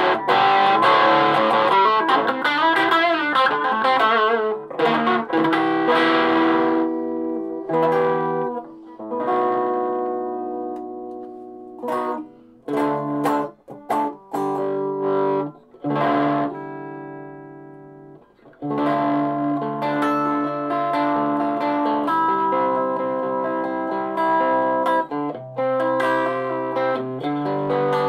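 Distorted electric guitar played through a Donner 5 W mini amplifier turned up full: held chords with wavering vibrato and bends at first, chords left to ring out and fade in the middle, then busier riffing over the last third.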